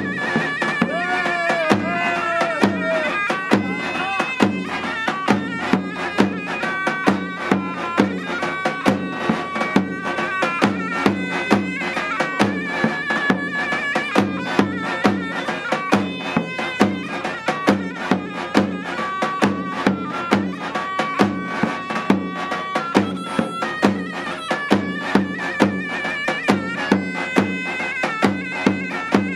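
Zurna playing a Turkish folk melody over steady, evenly spaced beats of a davul bass drum.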